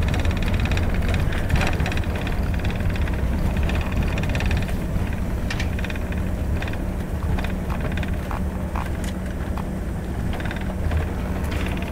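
Cabin noise of an Embraer ERJ145 rolling along the runway after touchdown: a steady low rumble from its twin Rolls-Royce AE 3007 turbofans and the airframe that gradually eases as the jet slows. Scattered light rattles and clicks from the cabin sound over it.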